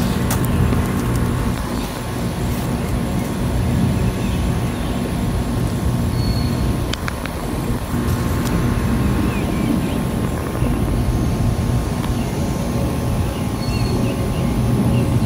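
Steady low rumbling background noise, with a few brief faint high chirps and a couple of clicks.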